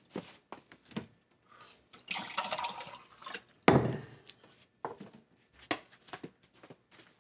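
Water running from a kitchen tap into a cup for about a second and a half, then a single sharp knock and a few light clicks as the cup is handled.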